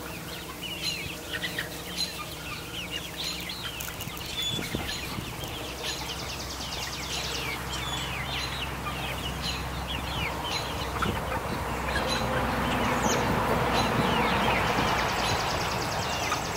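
A flock of young chickens peeping and clucking, with many short chirps overlapping, while a rustling hiss grows louder in the second half.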